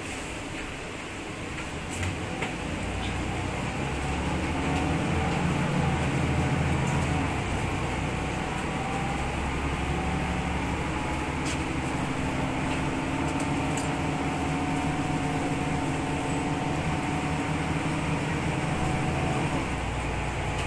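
Inside the cabin of a Mercedes-Benz O405G articulated bus: its OM 447 hLA diesel engine and ZF Ecomat automatic gearbox running, growing louder a few seconds in, over the steady hiss of the air-conditioning. A couple of knocks about two seconds in.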